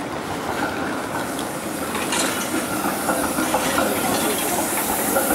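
Train moving through a railway station, its running noise growing louder, with a thin steady squeal and a rising hiss near the end.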